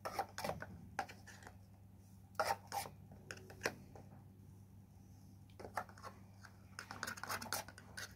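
Paper cups scraping and tapping as they are picked up on a wooden ice-cream stick and slid one inside another, in short irregular clusters of soft scrapes and clicks.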